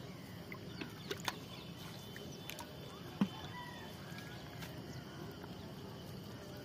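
Fishing net hauled by hand into a wooden boat: a few light knocks and taps, the sharpest a little past three seconds in, over quiet river ambience with faint bird calls.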